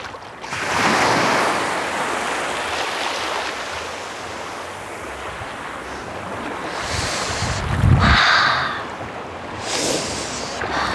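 Small waves washing onto a sandy shore, with wind buffeting the microphone, loudest about eight seconds in.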